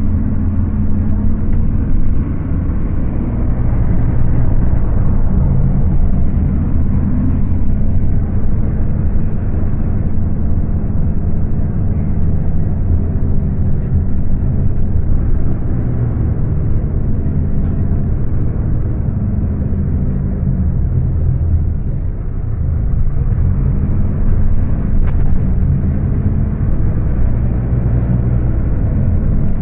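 Scania K250UB city bus's rear-mounted diesel engine running hard at high revs while the bus drives, its note dropping and building again a couple of times. Recorded on a phone, so the sound is dull and lacks treble.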